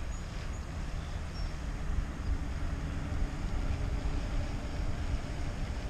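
Wind buffeting the microphone as a low, uneven rumble, with a faint steady hum in the middle of it.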